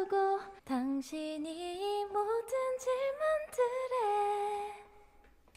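A woman singing solo in a soft, clear voice, with no accompaniment heard: a slow melody that climbs step by step, ending on a long held note that fades away near the end.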